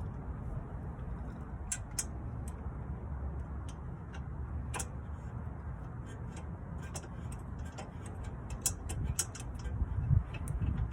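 Hand tools working on a car's suspension: scattered light metallic clicks and ticks over a steady low rumble, with a few louder knocks near the end.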